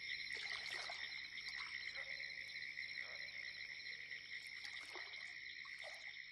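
Early-morning Florida swamp soundscape: a steady, high chorus of frogs and insects, with short separate calls standing out over it every second or so. The whole recording slowly fades down toward the end.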